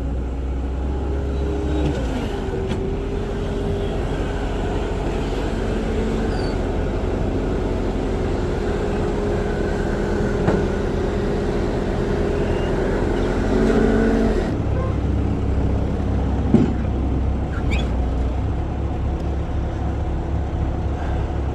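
Skid steer engine running continuously while the machine is manoeuvred, its pitch rising and falling briefly a couple of times. The low rumble changes about two-thirds of the way through, and a short sharp knock comes soon after.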